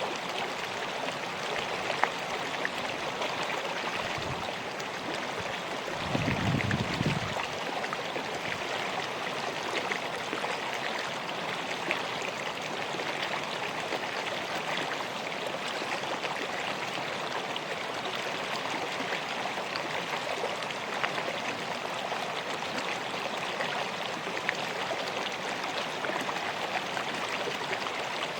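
River water flowing steadily in an even rush, with a brief low rumble about six seconds in.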